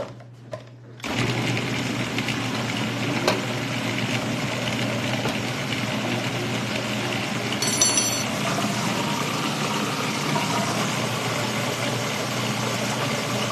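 Electric food processor running steadily, chopping Roma tomatoes down into a thin salsa. It switches on about a second in.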